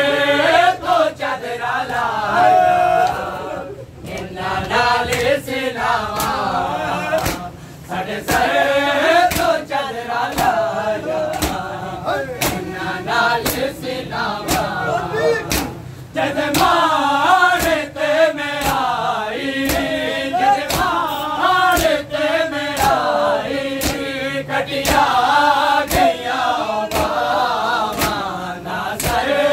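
A group of men chanting a Shia mourning lament (noha) in unison, in phrases with short breaks, over sharp slaps that keep a regular beat.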